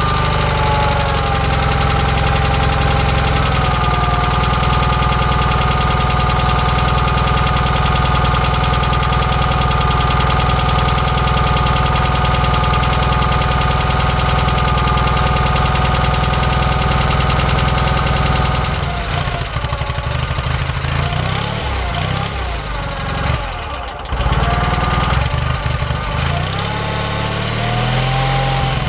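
Onan CCKA air-cooled twin-cylinder engine running steadily on a test run, with a slight valve tick. About two-thirds of the way in, its running turns uneven for several seconds, dipping and then picking back up.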